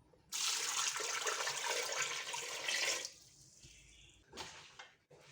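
A litre of water poured into a pressure cooker over whole lemons, a steady splashing rush lasting almost three seconds that stops sharply, followed by a couple of faint knocks near the end.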